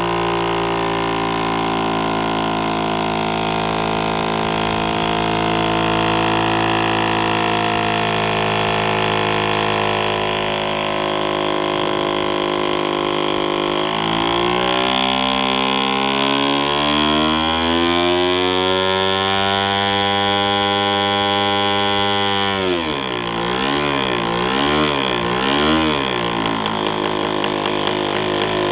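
PAW .38 boxer-twin model aircraft diesel engine idling steadily. Partway through, its speed climbs over several seconds and holds, then drops back, wavers up and down a few times and settles to a steady run again.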